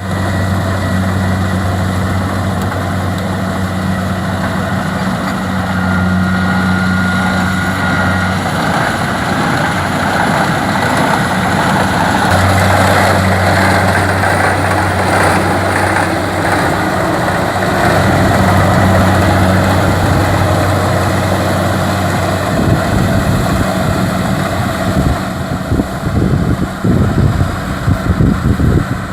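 Kubota DC-70 rice combine harvester's diesel engine running steadily with a loud low hum. Over the last few seconds the sound turns choppy and uneven.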